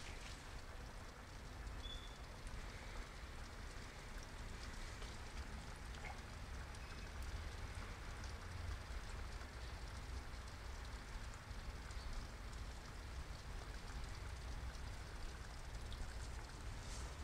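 Steady splashing of water from a pond pump's return hose falling onto the pond surface, with a low rumble underneath.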